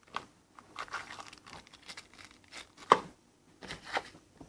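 A rotary tool kit's packaging and contents being handled: scattered rustling and light clicks, with one sharper click about three seconds in.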